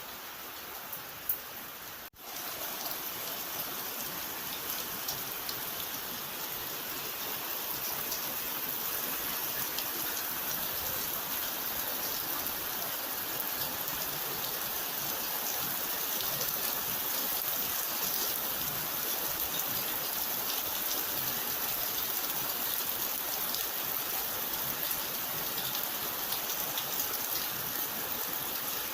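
Steady rain falling and pattering on surfaces, a dense, even hiss of drops. About two seconds in it cuts out for an instant and comes back slightly louder.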